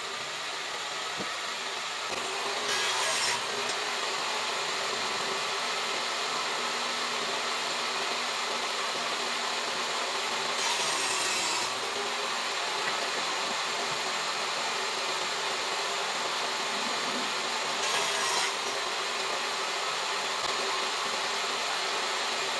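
Table saw running and cutting wood, a steady whine-and-rasp of the spinning blade that grows louder for a second or so about three, eleven and eighteen seconds in.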